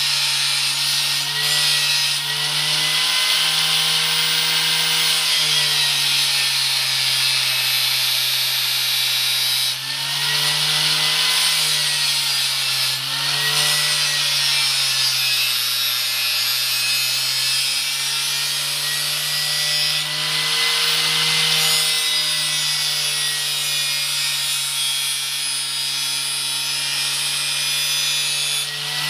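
A motor-driven tool running with a steady hissing, cutting noise, its motor pitch sagging and recovering every few seconds as if under changing load.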